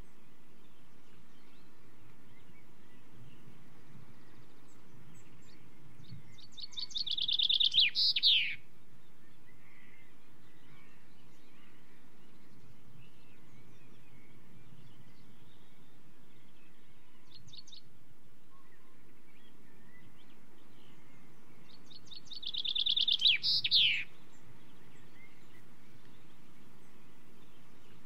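Male common chaffinch singing two song phrases about fifteen seconds apart, each a rapid run of repeated notes ending in a quick downward flourish. A steady low background noise runs beneath.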